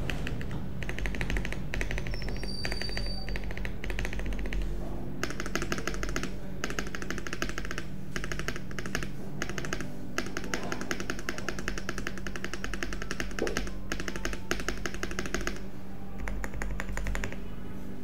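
Fast typing on a Meletrix Zoom65 V2 EE mechanical keyboard with WS Onion switches and White Dwarf Zoomcaps keycaps, built gasket-mounted with an aluminium plate, internal weight and stock foam. Rapid keystroke clacks come in bursts of a second or two, with short pauses between.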